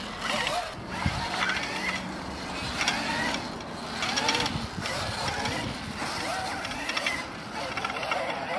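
72-volt electric pit bike's motor whining, its pitch rising and falling in short surges as the rider throttles on and off over the dirt track.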